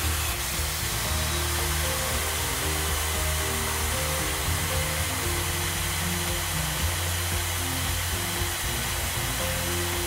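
Electric drill running steadily, its bit boring into a truck's steel frame rail.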